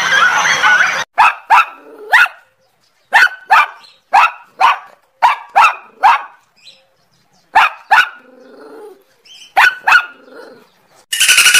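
An animal barking: about a dozen short, sharp barks in pairs and threes with silent gaps between. Shrill chattering calls fill the first second, and a dense, fast rasping buzz starts near the end.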